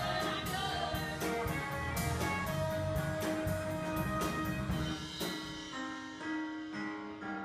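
Band music with a drum kit and held horn and keyboard lines, in a jazzy style.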